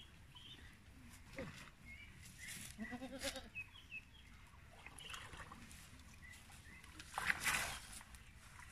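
A goat bleats once, a short wavering call about three seconds in. Water sloshes as people wade and work a fishing net in a shallow pond, with a louder splash near the end.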